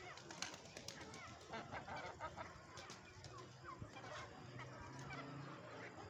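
A flock of chickens and chicks calling as they are fed pieces of dough: many short, quick chirps and peeps, with a few sharp clicks among them.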